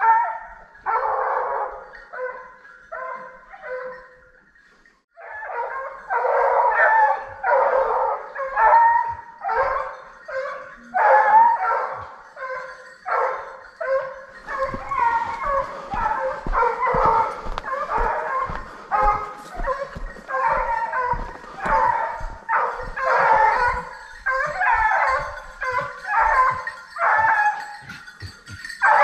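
Scent hounds baying in quick repeated bouts while trailing a wild boar through the cover, with a short break about four seconds in.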